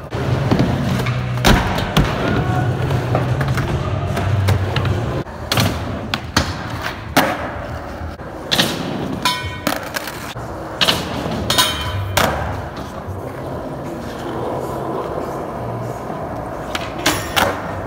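Skateboard wheels rolling on a concrete floor with a low rumble, broken again and again by the sharp clack of the board popping and the thud of landings.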